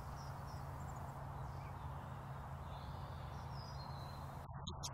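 Steady low outdoor background rumble with a few faint, short bird chirps scattered through it.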